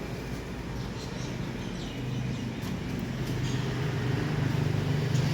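A steady low mechanical hum that grows gradually louder, with a few faint clicks over it.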